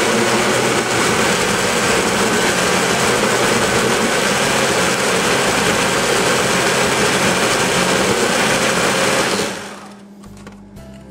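Countertop blender motor running steadily while blending a banana custard, then switched off about nine and a half seconds in and winding down.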